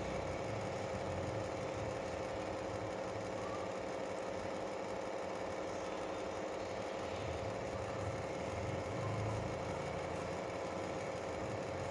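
A steady mechanical hum with a constant mid-pitched tone and a low rumble underneath.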